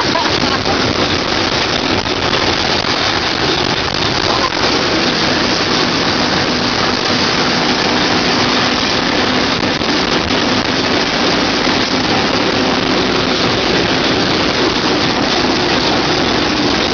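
Steady rushing noise of two trains running side by side on the rails, with wind, heard through an open train window. A faint steady hum sits underneath.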